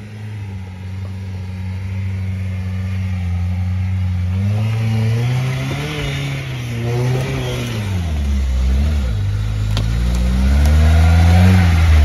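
An off-road 4x4's engine running under load, holding a steady note for the first few seconds, then revving up and down several times, getting louder toward the end.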